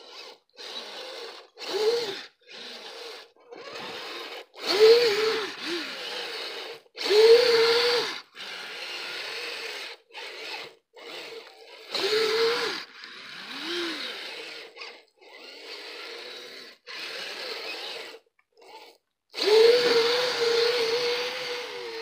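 Kyosho Blizzard RC snowcat's twin brushed 380-size electric motors and gear drive whining in many short throttle bursts as it drives its tracks through snow. Each burst rises quickly in pitch, then holds, and stops abruptly; the longest burst comes near the end.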